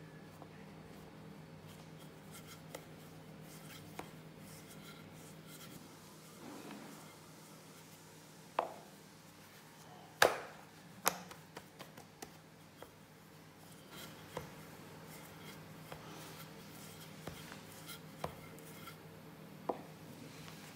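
Wooden rolling pin and hands working a sheet of puff pastry dough on a floured silicone mat: soft handling noise with scattered taps and knocks, the sharpest a cluster about ten seconds in. A faint steady hum runs underneath.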